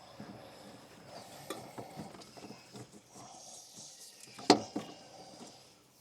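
Filter wrench and tools working the main diesel filter loose: light scraping and small clicks, with one sharp metallic knock about four and a half seconds in.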